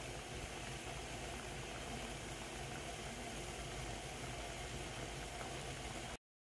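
Budae-jjigae (army stew) with sausages and fish cake boiling in a pan, a steady bubbling simmer as it is reheated. It cuts off abruptly just before the end.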